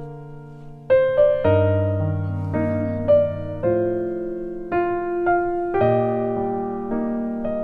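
Background piano music: slow, gentle notes and chords, each struck note fading before the next.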